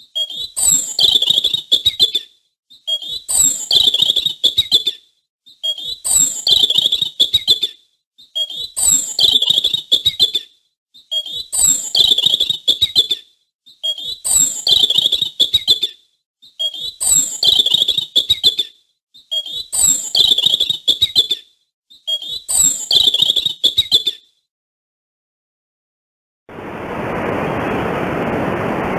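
A high-pitched chirping animal call, the same two-second phrase repeated nine times about every three seconds. After a brief silence near the end, a steady rushing noise begins.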